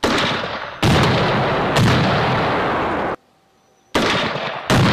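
Rifle grenades being fired at a target: five sudden loud blasts, each trailing off in a long echo, with a brief silent gap about three seconds in.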